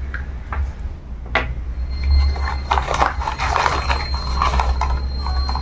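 Handling sounds of microphone cables being pulled out of a small accessory box: a few light clicks, then a stretch of scraping and rustling over a low rumble.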